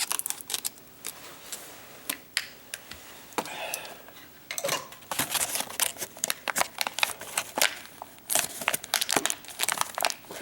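Stiff plastic clamshell packaging being cut with tin snips and pulled apart: sharp snips and crinkling crackles, sparse for the first few seconds and dense from about halfway on.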